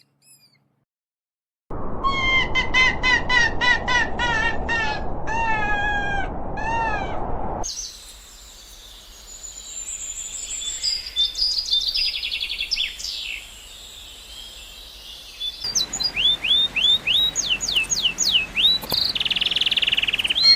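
Birds calling in three short spliced clips after a brief silence. First comes a run of repeated falling calls over a background hiss, then mixed chirps and whistles, then a quick series of rising whistled notes.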